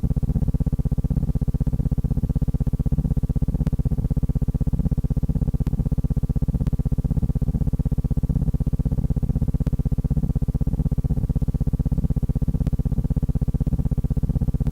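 Steady low buzzing hum with a fast, even pulse that does not change.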